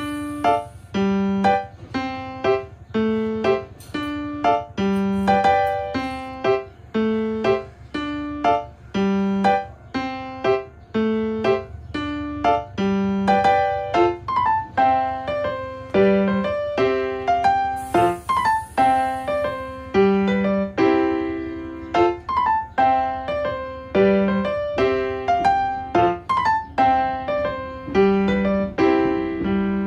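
Background piano music: a steady run of single struck notes, each fading away, in an even rhythm.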